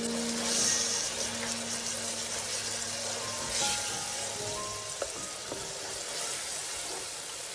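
Chopped onions and tomato sizzling as they fry in a pan, stirred with a wooden spatula, under background music.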